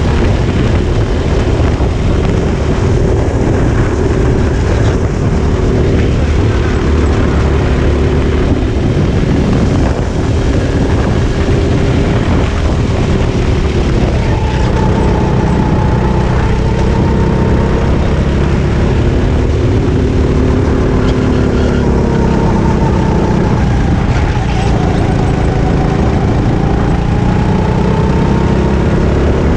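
A Sodi RT8 hobby kart's four-stroke engine heard from on board at racing speed, loud and continuous, its pitch rising and falling as the driver accelerates and lifts through the corners.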